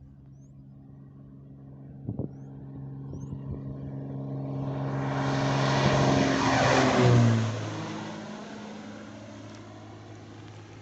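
A Cessna 188 agricultural plane flies past. Its engine and propeller grow steadily louder to a peak a little past halfway, then the pitch drops as it passes and the sound fades away.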